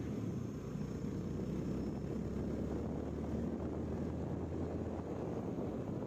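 Daihatsu Gran Max 4x4 van driving: a steady low engine and road drone.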